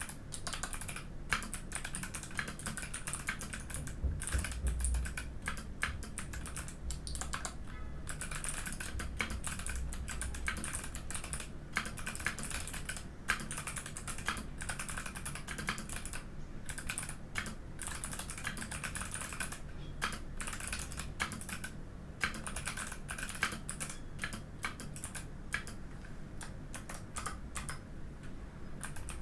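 Steady, fast typing on a Mikit M65 mechanical keyboard with clicky Kailh Box White switches: a dense, irregular run of keystroke clicks broken by a few short pauses.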